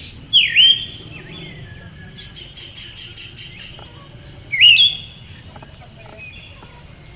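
Female Siberian thrush giving two loud, short calls about four seconds apart, each a quick sweep down and back up in pitch, over faint chirping in the background.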